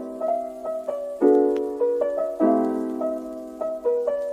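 Gentle piano-like keyboard music: sustained chords struck about every second and a quarter, each fading away, with a simple melody of single notes above.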